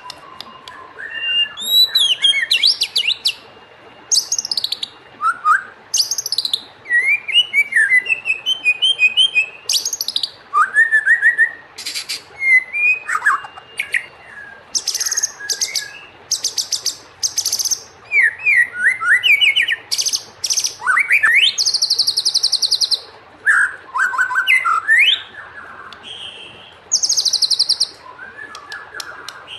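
White-rumped shama singing a long, varied song: sliding whistled phrases mixed with rapid high buzzy trills, with short pauses between phrases.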